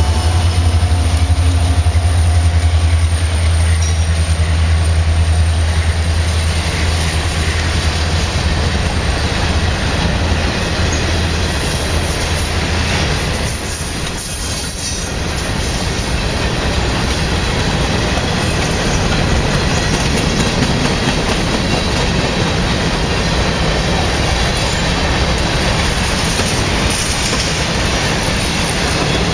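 Norfolk Southern freight train passing close by. The low drone of the trailing diesel locomotive fades over the first ten seconds or so, leaving the steady rumble and rattle of covered hopper cars rolling by on the rails.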